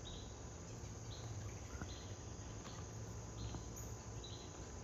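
Backyard ambience: short, high chirps repeat evenly about once every second, over a low, steady rumble.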